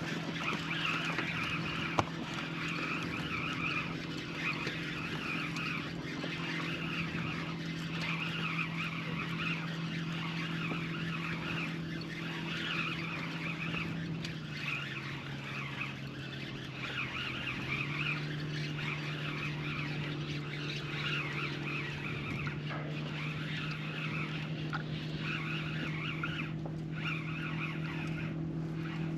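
Boat motor running steadily. Its pitch drops about halfway through and settles a little higher a few seconds later, over a steady hiss.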